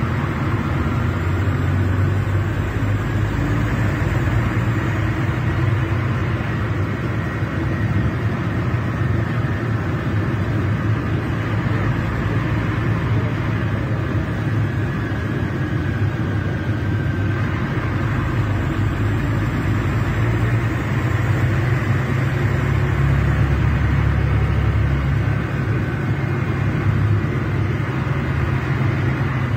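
Scania K380 coach's DC12 06 inline six-cylinder diesel engine running steadily, a deep drone with a faint high whine above it.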